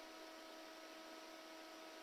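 Near silence: a faint steady hiss with a steady electrical hum on the helicopter's intercom audio.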